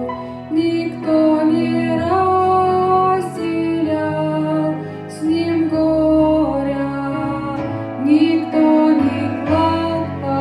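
Slow devotional song: a woman's voice holding long notes that glide from pitch to pitch, over sustained low accompaniment chords.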